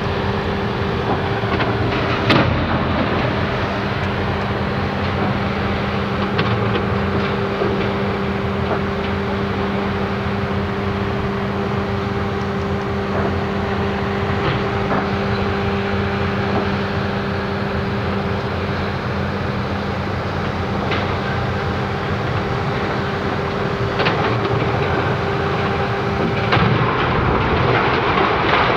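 Steady mechanical drone with a constant hum, broken by a few sharp knocks. Near the end a sharp crack is followed by a rising rumble as the power-station block begins to topple in a controlled demolition.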